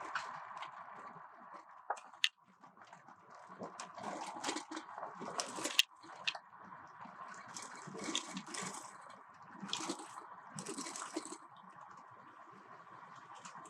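Tyres crunching and splashing over a wet gravel road, heard from inside the moving vehicle, with irregular clicks and several short bursts of hiss.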